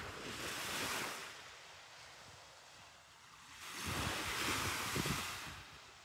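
Small waves breaking and washing up on a sandy beach, in two swells: one fading away in the first second or so, and a louder one about four seconds in. Wind rumbles on the microphone during the louder swell.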